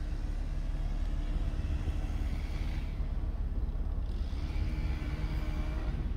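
Car driving: a steady low rumble of engine and road, with a higher hiss that swells twice, about two seconds in and again near the end.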